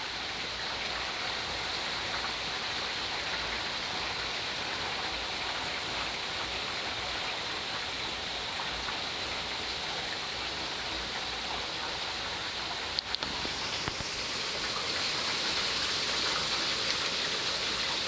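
Steady light rain falling, an even hiss of drops. A brief knock about thirteen seconds in, after which the rain sounds slightly louder.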